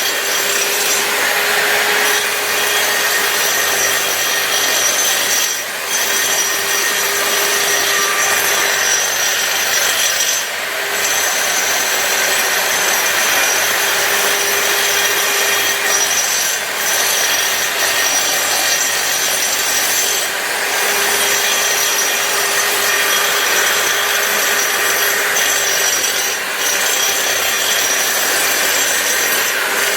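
Hitachi 230 mm angle grinder fitted with a floor-grinding dust shroud, running at full speed and grinding a floor, with a steady high whine over a loud rough grinding noise. The noise dips briefly about every five seconds.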